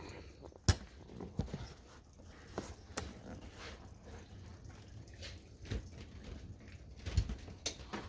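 Scattered small clicks and taps of hand work on the tractor's throttle linkage as a new throttle cable is fitted, with a few sharper metallic knocks.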